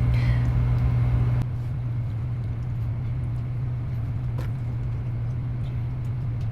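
Steady low hum of a room's ventilation unit with an even rush of air noise, dropping slightly in level about a second and a half in.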